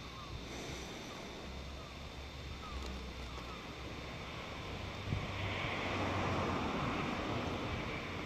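Wind blowing across the microphone as a steady rushing noise, swelling into a stronger gust about five seconds in.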